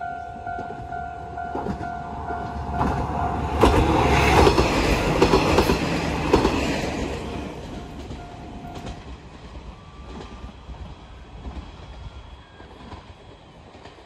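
Japanese level-crossing alarm ringing in a steady pulse, then a diesel railcar, the converted KiHa 47 'Kawasemi Yamasemi', passes through the crossing from about three seconds in, its wheels clacking over the rail joints. The train sound is loudest around four to six seconds in and then fades away.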